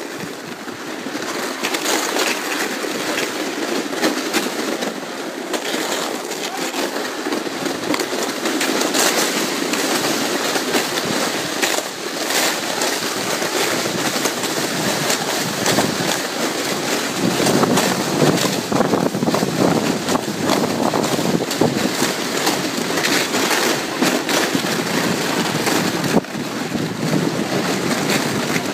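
Sled being pulled over snow by a dog: a continuous scraping, crunching noise with many small crackles.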